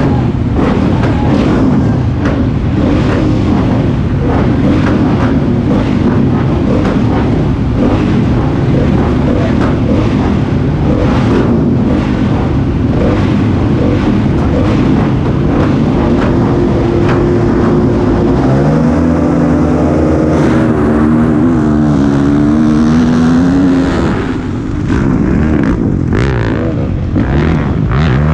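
Dirt-bike engines revving hard together on a motocross starting line. About two-thirds of the way through the field launches, the nearest engine climbing in pitch through its gears, then backing off briefly before pulling again into the first turn.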